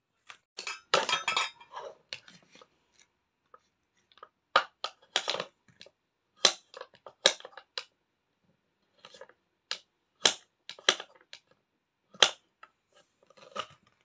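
Irregular wooden clacks and knocks from a child's wooden toy knife and play food being handled on a wooden cutting board, with a quick run of them about a second in and single knocks spaced out after.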